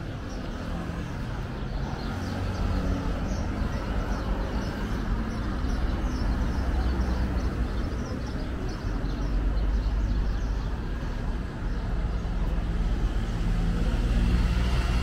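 A motor vehicle's engine running close by in the street: a steady low rumble that grows a little louder, with faint voices behind it.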